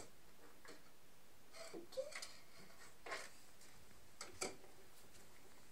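Faint, scattered light taps and clicks, a few at a time: a small cluster about two seconds in with a brief squeak, and more around three and four and a half seconds.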